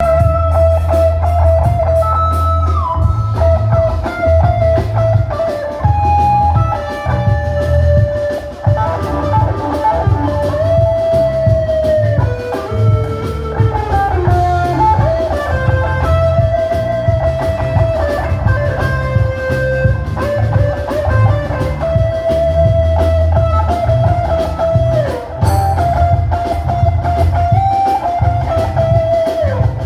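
Instrumental band music: a lead guitar plays a melody of held notes with slides between them, over a pulsing bass line and a drum kit.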